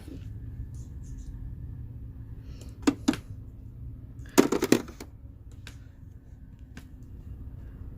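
Face mask packs and small skincare items being handled and set into a mini fridge: two light knocks, then a quick rattle of clacks a second or so later, over a low steady hum.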